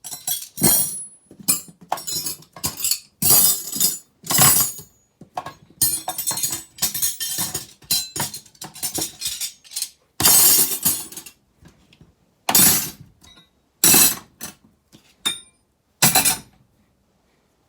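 Steel wrenches clinking and clattering against each other and the metal toolbox drawer as they are pulled out and set down by hand, in irregular bursts of several clanks with short pauses, stopping shortly before the end.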